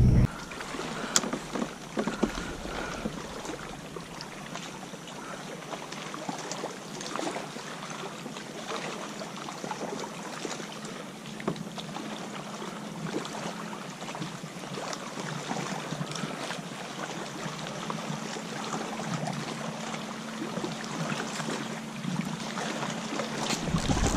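Water lapping and trickling against a plastic fishing kayak's hull, with scattered small clicks and taps and a faint steady hum underneath.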